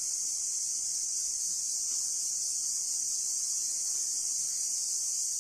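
Insects droning steadily at a high pitch: an even, unbroken hiss that neither pulses nor changes.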